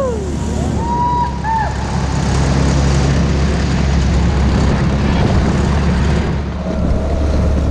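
Tohatsu 15 hp outboard motor running steadily under way, driving a small rigid inflatable boat, with water and wind noise over the hull. About a second in, a faint whistle rises and falls over the engine.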